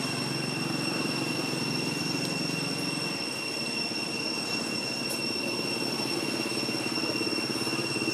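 A steady low droning hum, like a distant engine, with two thin, steady high-pitched tones held above it.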